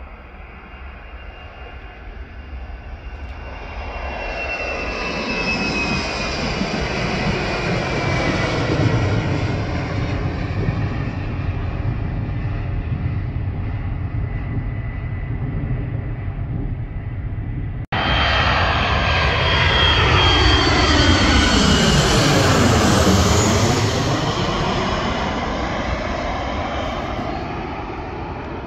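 Jet airliner engines at takeoff power, a roar with a high whine that swells and slowly fades as the aircraft climbs away. After an abrupt cut, another jet airliner passes close by. Its roar sweeps down and back up in pitch with a whooshing, phasing sound as it goes past, then fades away.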